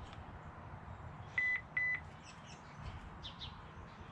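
Two short, high electronic beeps from a HeimVision Wi-Fi security camera about a second and a half in, the confirmation that it has scanned the Wi-Fi QR code on the phone screen. Faint bird chirps sound in the background.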